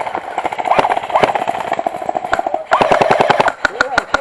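Airsoft guns firing on full auto: two long rattling bursts of rapid shots, then a run of separate, sharper single shots near the end.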